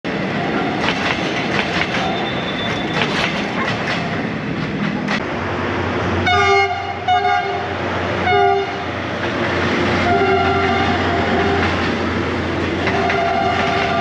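Train running past with its wheels clicking over the rail joints, sounding its horn in three short blasts about six to eight and a half seconds in.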